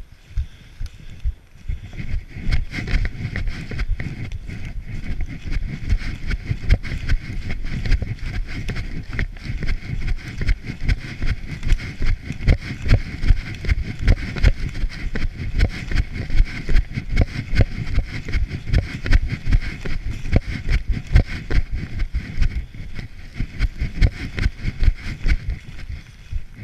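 Running footsteps on a trail thickly covered in dry fallen leaves: steady, rapid thudding strides, about two to three a second, with a constant rustle and crunch of leaves. The footfalls grow louder about two seconds in.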